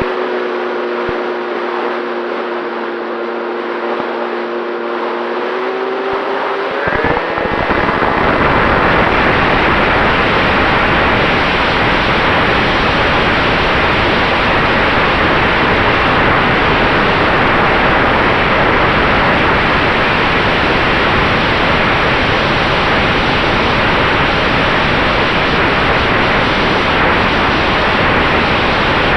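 Electric motor of an FX-79 flying-wing RC plane humming at a steady pitch, rising briefly about seven seconds in. A loud, steady rushing noise then takes over and masks it.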